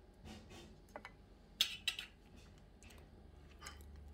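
A few light clicks and taps from a wooden spatula and a slice of bread being handled on a bamboo cutting board, the two loudest close together about a second and a half in.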